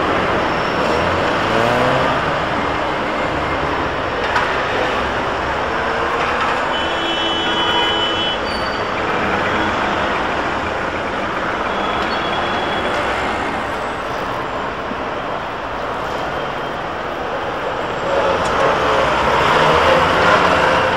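City street traffic: trolleybuses and cars passing, a steady rush of motors and tyres that swells near the end as a long bus passes close by.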